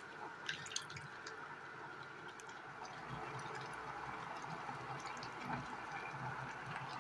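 Water dripping and splashing in the first second as wet leafy greens are lifted out of a bowl of water. Then a steady hiss, a little louder from about three seconds in, from a steel pot of water heating on an induction cooktop.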